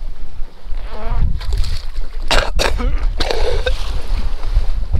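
A seasick man retching over the side of a boat: a wavering groan about a second in, then harsh heaves in the middle.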